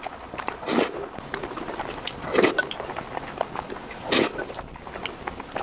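Close-miked wet eating sounds: three loud slurps as mouthfuls of saucy rice are taken off a wooden spoon, with small wet chewing clicks in between.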